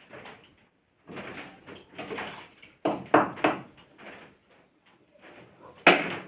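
Scraping and knocking of a cooking pot and utensils, a run of short irregular sounds with a cluster of three sharp knocks about three seconds in and a loud clank near the end.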